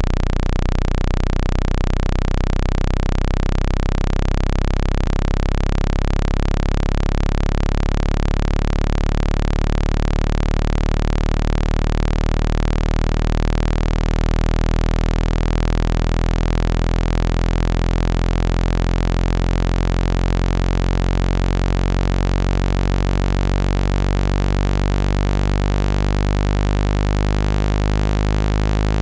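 Synthesized water-eject tone: a loud, steady low hum with a stack of overtones, played to vibrate trapped water out of a phone speaker.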